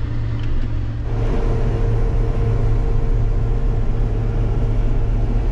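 John Deere tractor engine running steadily under load while pulling a peanut combine, heard from inside the cab as a low, even hum. About a second in, the sound changes as the combine is working in the field, and a steady whine joins the hum.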